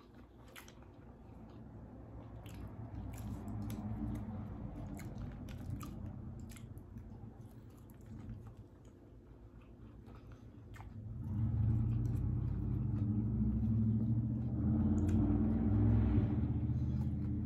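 Close-up chewing and biting of a sushi roll with a crunchy topping, with scattered sharp crunches and clicks. A low steady hum grows much louder about eleven seconds in.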